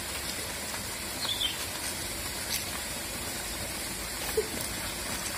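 Steady outdoor background hiss, with a faint high chirp about a second in and a short faint tone near the end.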